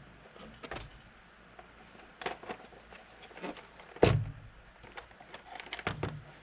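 Hard plastic parts tapping and knocking together as the new left air scoop is fitted against the airbox cover: a handful of separate clicks and knocks, the loudest about four seconds in.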